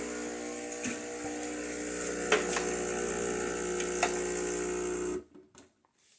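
Breville espresso machine's pump buzzing steadily as it runs, with a few sharp clicks and knocks over it, then cutting off abruptly about five seconds in.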